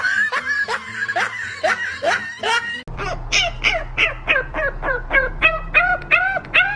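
A fast series of short animal calls, each rising and falling in pitch, about three to four a second, over a steady low hum.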